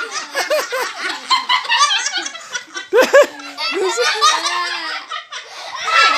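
A group of children and a woman laughing hard together, several voices overlapping in waves of giggles and belly laughs, loudest about three seconds in, easing off briefly and building again near the end.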